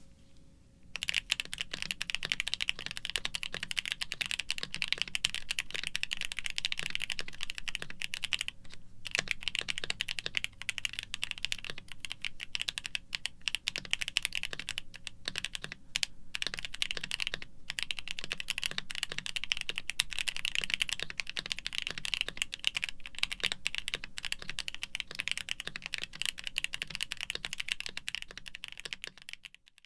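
Fast, continuous typing on a Keychron Q2 aluminium-case mechanical keyboard with Kailh Cream Pro linear switches and PBT keycaps, heavily foam-dampened, giving dry, muted clacks. It starts about a second in, with a short pause just before the one-third mark and two brief breaks around the middle.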